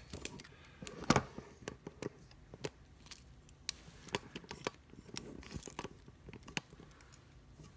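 Phone camera being handled close up, with fingers rubbing and tapping near the microphone. Irregular clicks, knocks and crackling, the loudest knock about a second in.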